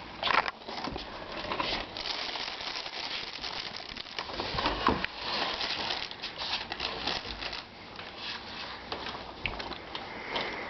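Soft plastic baby-wipes package crinkling and rustling as it is handled, on and off.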